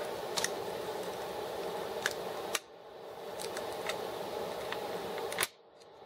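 A few sharp clicks and taps of a screwdriver tip against metal and plastic as the tabs holding a laptop's CPU heat-sink and fan assembly are pried up, over a steady background hum. The two loudest clicks come about two and a half seconds in and near the end, and the background dips briefly after each.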